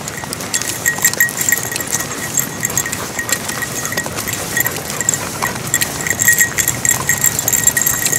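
A small bell on a little dog's harness jingling in a quick, steady rhythm as the dog trots, over footsteps on a gravelly dirt track.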